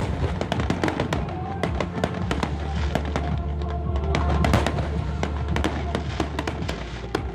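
Aerial fireworks bursting and crackling in many quick, irregular bangs, with music playing along.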